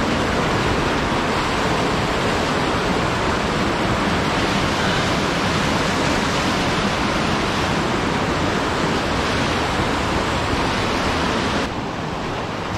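Small waterfall pouring into a stream pool: a steady, loud rush of falling water, a little quieter near the end.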